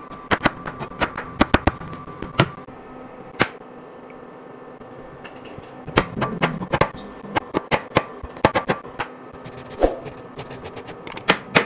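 Chef's knife chopping vegetables on a plastic cutting mat: a quick run of sharp knocks for the first couple of seconds, then a short pause, then scattered chops again from about halfway through.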